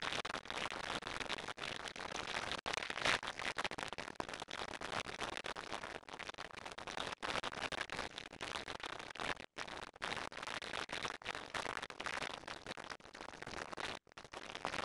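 Harsh crackling static, thick with clicks and broken by a few brief dropouts, in place of the preacher's voice. It is noise from a recording fault, not a sound in the room.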